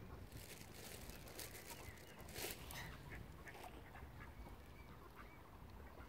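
Mallard ducks quacking faintly in short, scattered calls, with a few brief rustling noises (the loudest about two and a half seconds in) over a steady low rumble.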